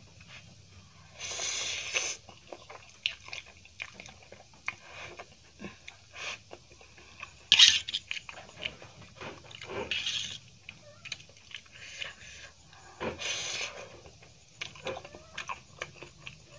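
Close-up eating sounds of spicy Maggi noodles: chewing and slurping, with a fork clicking and scraping on a steel plate. Several short noisy bursts, the loudest and sharpest about seven and a half seconds in.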